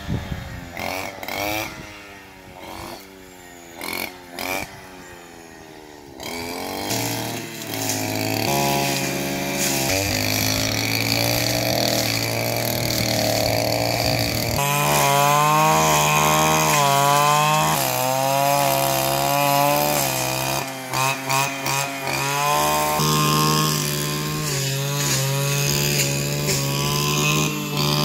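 Petrol brush cutter engine cutting dry grass and brush. It revs up and down repeatedly at first, then about six seconds in it becomes louder and runs steadily at high revs, its pitch wavering as the line bites into the grass.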